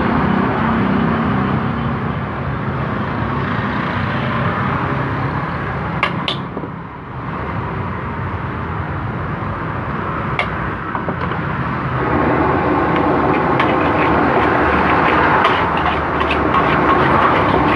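Fried rice being cooked in a wok over a gas burner: a steady roar of burner and frying, with sharp clinks of a metal spatula on the wok a few times and more often near the end.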